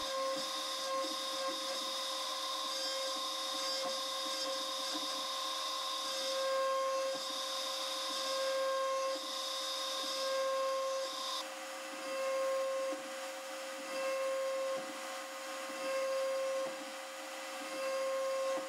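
CNC mill's end mill hogging metal off the bottom of a part under flood coolant: a steady whine with a spray-like hiss, swelling louder every couple of seconds from about six seconds in as the cutter sweeps across the part.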